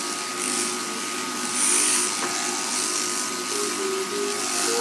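Electric sheep-shearing handpiece buzzing steadily as it cuts through a thick fleece, with a high hiss that swells and fades every second or so.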